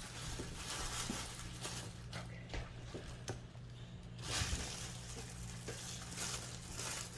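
Faint kitchen handling noises: soft clicks and rustling as things are moved about on the counter, over a low steady hum.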